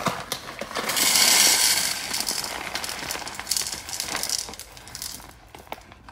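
A bag rustling as vegetables and fruit are loaded into it, with scattered clicks and knocks. It is loudest about a second in and dies down toward the end.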